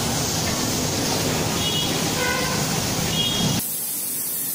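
Pressure-washer lance spraying a jet of water against a car's side panel, a steady hiss of spray. It stops abruptly about three and a half seconds in, leaving a much quieter background.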